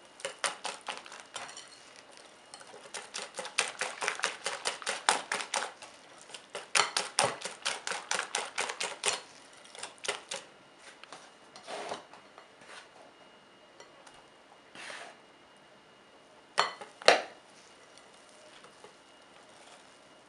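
Cake batter being beaten by hand in a bowl, the utensil clicking rapidly against the bowl several times a second as flour is worked in. The beating stops about halfway through, leaving a few scattered taps and two sharper knocks against the bowl.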